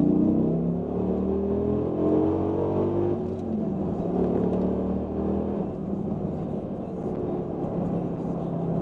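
Dodge Ram SRT-10's 8.3-litre V10 heard from inside the cab, accelerating with its pitch rising. About three seconds in the pitch drops back and climbs again, then settles to a steady cruise.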